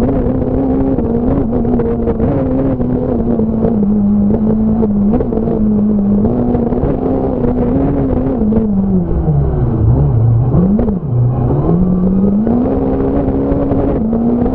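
Fiat Punto S1600 rally car's 1.6-litre four-cylinder engine heard onboard at full stage pace, its revs rising and falling through gear changes. About nine seconds in the revs drop steeply, with a quick throttle blip, then climb again.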